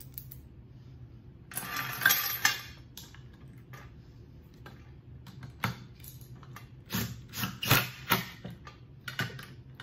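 Metal hardware clinking and rattling: a steel bolt, washer and chain handled on a wooden workbench, in a scrape-like burst about two seconds in and a run of short knocks and clinks in the second half.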